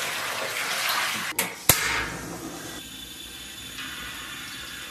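Water pouring from a plastic bucket into a steel basin, cut short by two sharp clicks about a second and a half in, then a quieter steady hiss.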